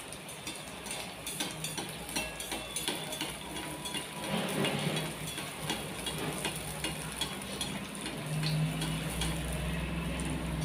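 Sabudana (sago) vadas deep-frying in hot oil: a steady sizzle with dense crackling, while a slotted spoon moves in the pot. A low hum comes in about eight seconds in.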